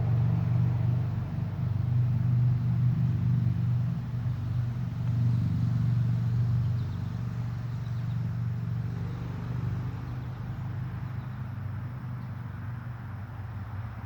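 Distant road traffic: a steady low rumble of passing vehicles picked up through a parabolic microphone, easing off over the second half.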